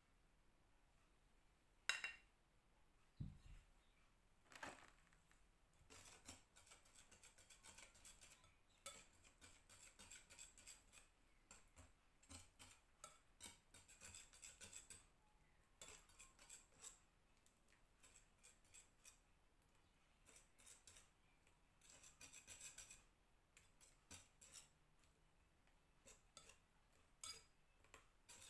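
A few separate clinks and a dull knock, then a wire whisk beating batter in a glass mixing bowl, its wires clicking and scraping against the glass in quick, irregular strokes. Faint throughout.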